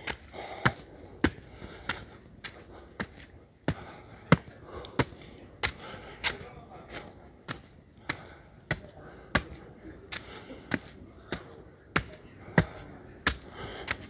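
Footsteps climbing concrete steps: sharp, even steps of shoe soles on the hard treads, about three every two seconds.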